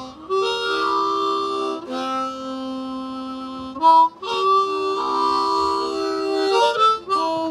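An Easttop Lightning diatonic harmonica in low F being played: long held chords of several notes at once, changing a few times, with a short break about four seconds in.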